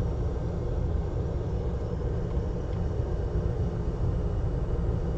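Steady low rumble of background machinery, unchanging throughout.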